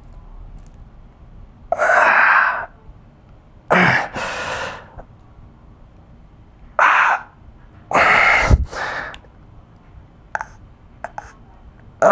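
A man's heavy, strained breathing during a hard set of upright rows pushed toward failure: about five loud, forceful breaths and gasps a second or two apart, some with a groaning voice in them.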